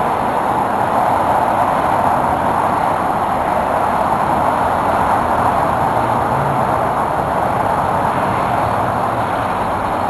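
Steady rushing noise of a ride on wheels, wind and rolling over the handlebar-mounted camera, holding an even level throughout.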